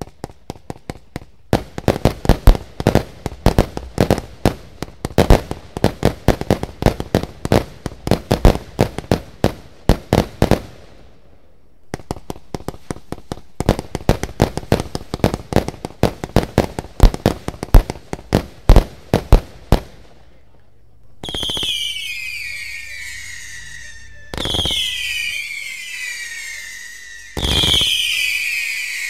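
Lesli Exploding Eagle 146-shot firework battery firing: a rapid string of sharp bangs, several a second, with a short lull partway through. Near the end come three loud whistling shots, about three seconds apart, each whistle falling in pitch.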